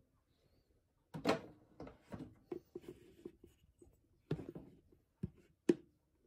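A ceramic mug scooping flour out of a plastic storage bin as the bin's lid is handled: a string of irregular light knocks, taps and scrapes. The sharpest knock comes near the end.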